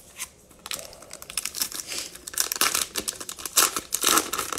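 Crinkly wrapper of a Panini Mosaic football cello trading-card pack being torn open and pulled apart by hand: a dense run of sharp crackles that starts about a second in and is loudest in the second half.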